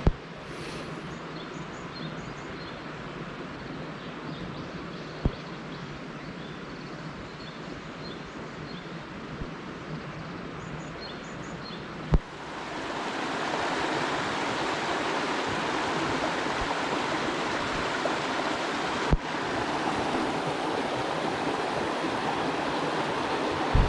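Steady rushing noise like running water, with faint light ticks over the first half and a few single sharp clicks; about halfway through it suddenly becomes louder and fuller.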